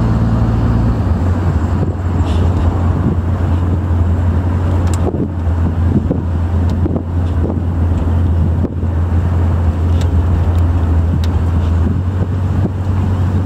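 1962 Chevy II convertible driving with the top down: a steady low engine and road rumble, mixed with wind rushing over the microphone.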